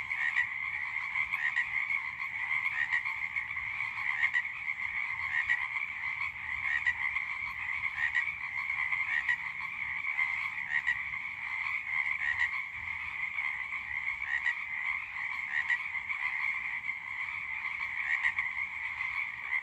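A chorus of many frogs croaking together in a steady, dense din. Louder individual calls stand out about once every second or so.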